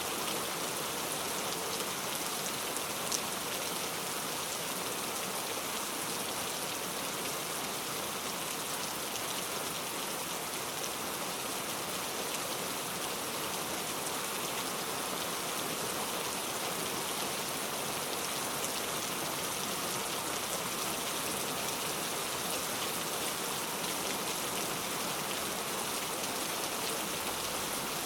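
Heavy rain falling steadily, an even hiss of countless drops with a faint tick about three seconds in.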